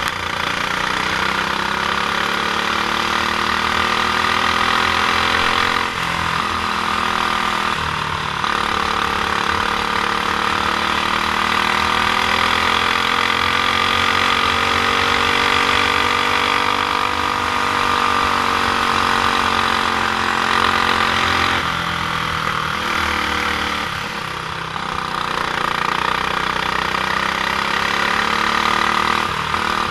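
Stock Honda GX390 single-cylinder four-stroke kart engine running under racing load. Its pitch climbs in a long rise through the middle and falls back, with several brief dips where the throttle is eased.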